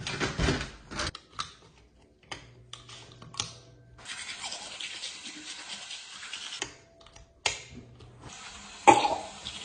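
Rubber-gloved hand working a door knob and wall light switches: a string of small clicks and scrapes, two stretches of rustling hiss, and a louder knock near the end.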